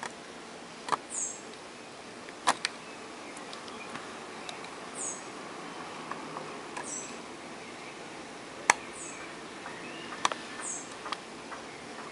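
A few sharp small clicks as a Ryzen 5 processor and a thin metal tool touch the AM4 socket while the chip is eased into place, over a steady hiss. A short, high, falling chirp, like a small bird's, recurs every couple of seconds.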